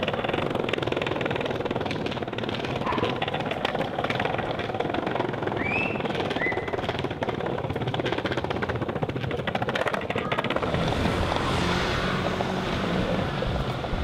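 Skateboard wheels rolling over stone paving, a steady rough rumble with two short high chirps about six seconds in.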